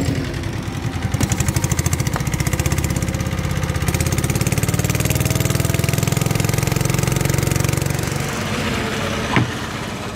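Small boat engine running with a rapid, even pulse, its pitch rising slowly through the middle, then getting quieter about eight seconds in. A couple of sharp knocks come near the end.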